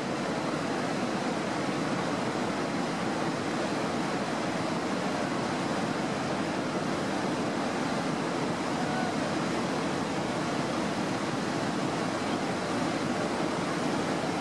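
Steady, unbroken rush of falling water from a waterfall.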